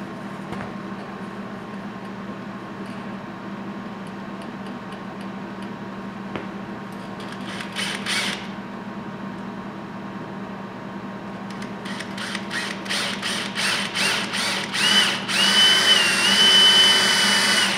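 Cordless drill boring a hole up into the front end of a UTV. One short burst, then a string of short trigger pulses about two a second to start the hole, then a steady run with a high whine near the end, the loudest part.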